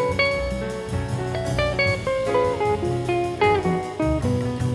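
Background music: a plucked guitar melody over a low bass line.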